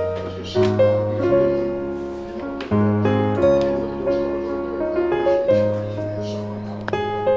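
Background music: a gentle piano or keyboard piece with sustained chords over a steady bass, a new chord struck every second or two.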